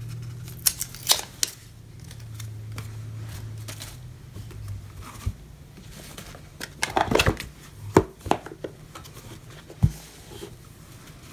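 Hands handling a boxed card deck and its cardboard box: light rustles of card stock and paperboard with a few sharp clicks and taps, the clearest about 1 s in, around 7 to 8 s and near the end, over a low steady hum in the first half.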